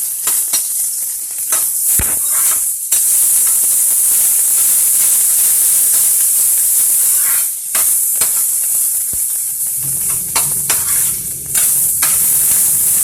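Chopped onions sizzling steadily as they fry in hot mustard oil in a pan, browning, with a spatula scraping and knocking against the pan as they are stirred. A low hum comes in near the end.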